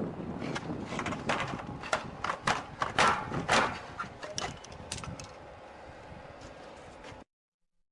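A garage door being struck again and again in a forced-entry attack test: a run of irregular sharp knocks and bangs, the hardest about three seconds in, thinning out after about five seconds. The sound cuts off abruptly near the end.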